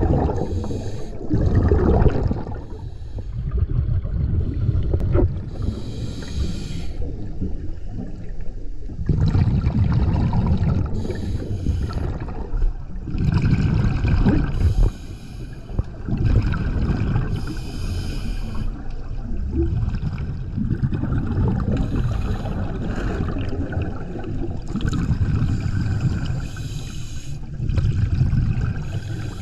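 Scuba diver breathing through a regulator underwater: a hissing burst of exhaled bubbles every two to four seconds over a steady low rumble.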